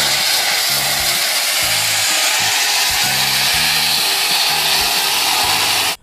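Gravel pouring out of a tipped dump truck body: a loud, steady rushing noise, with a low hum that breaks in and out underneath.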